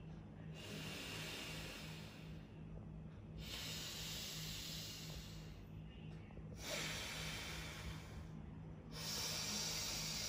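Alternate-nostril breathing (anulom vilom pranayama): four slow, deep breaths drawn in and let out through one nostril at a time, each a long rush of air through the nose with a short pause between breaths.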